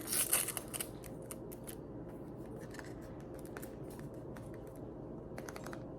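Small gift being unwrapped and its packaging handled: a brief rustle in the first second, then scattered faint crinkles and clicks.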